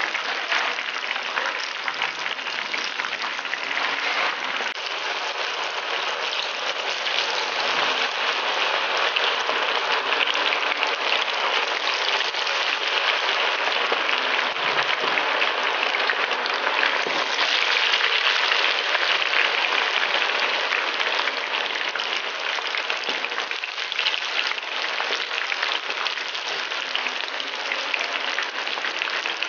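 Chicken pieces deep-frying in hot oil, a steady dense crackle and sizzle of bubbling oil.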